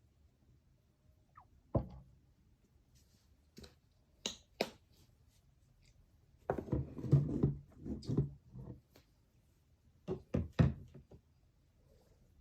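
Scattered light knocks and taps from things being handled, with a busier run of knocking and handling noise in the middle.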